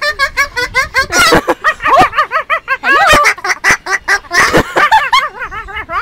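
Rapid, high-pitched laughter-like vocalizing: many short rising-and-falling cackles in quick succession, with a few sharp clicks among them.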